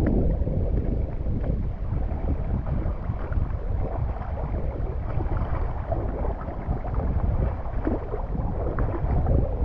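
A heavy stream of rain-swollen water rushing steadily, mixed with wind buffeting the microphone.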